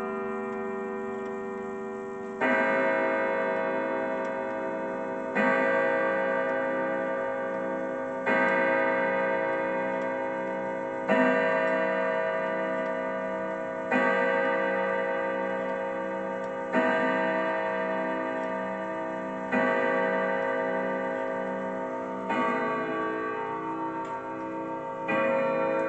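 Grandfather clock's Urgos triple-chime movement striking the hour on its chime rods. There are nine evenly spaced strokes, one about every three seconds, and each rings on and fades before the next.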